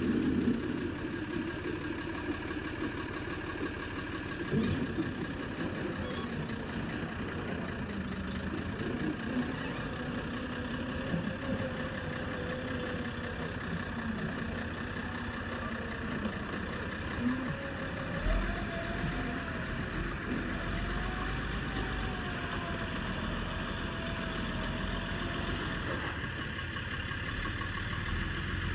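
A heavy vehicle's engine running steadily, with a wavering whine that slowly climbs in pitch through the middle and then cuts off.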